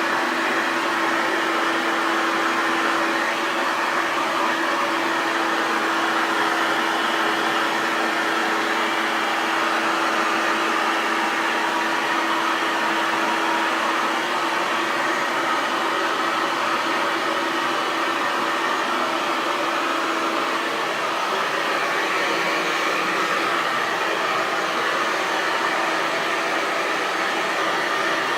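Hair dryer running continuously: a steady, even blowing whoosh with a low motor hum underneath that fades about three-quarters of the way through.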